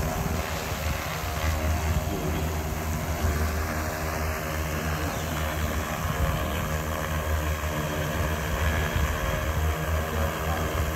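Large multirotor drone hovering, its motors and propellers making a steady buzz with a low hum and many layered tones.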